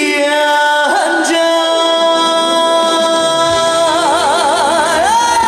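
Live trot song performance: a long held melody note over the band that wavers into vibrato about four seconds in, then slides up into a new held note near the end.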